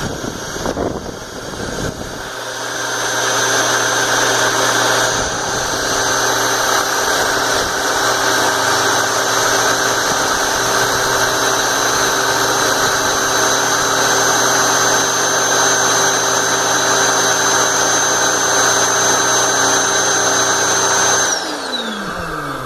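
Electric air-mattress inflator pump running steadily with a high whine and rushing air, blowing on a fidget spinner to spin it. Near the end it is switched off and the motor winds down with a falling whine.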